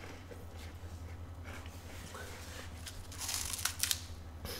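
Plastic snack wrapper crinkling and tearing as it is handled: faint rustles, then a louder crackling patch about three seconds in. A steady low electrical hum runs underneath.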